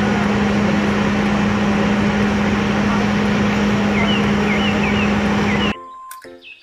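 Fire truck engine running steadily with a strong hum as it drives the pump feeding the ladder's water stream, with a few bird chirps about four seconds in. The sound cuts off suddenly near the end, leaving faint clicks and a short beep.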